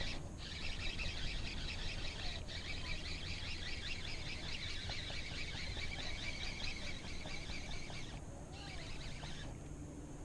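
Baitcasting reel cranked fast, a dense whirring tick of the gears, as a hooked sand bass is reeled in. It has a few brief pauses and stops near the end.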